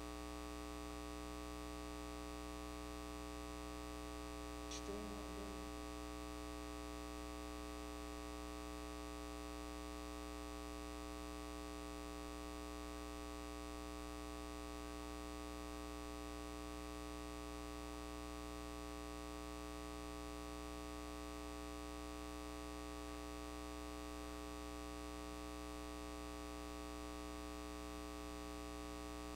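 Steady electrical hum, a stack of fixed tones that never changes, with a faint short sound about five seconds in.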